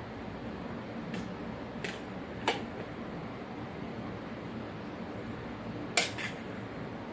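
A metal spoon clinking against glass dishes five times: three light clinks in the first few seconds, then the loudest, a quick double clink, near the end. A steady low hum runs underneath.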